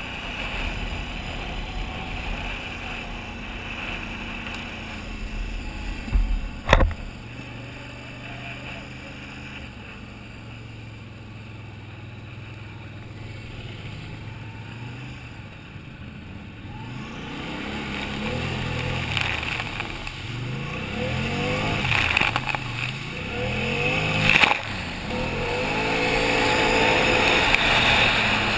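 Can-Am Outlander 800 ATV's V-twin engine running under way, steady at first, with a single sharp knock about seven seconds in. In the second half the engine revs up and down repeatedly and gets louder.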